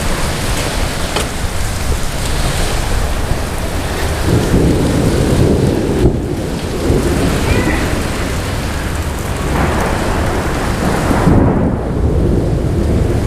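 Thunderstorm: steady rain with rolling thunder. The thunder swells about four seconds in and again near ten seconds.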